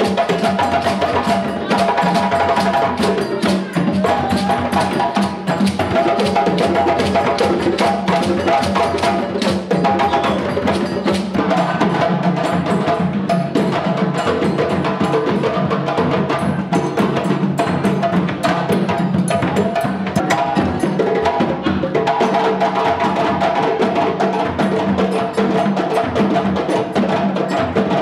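Music with a busy percussion beat of rapid, sharp hits over held melodic notes, playing without a break.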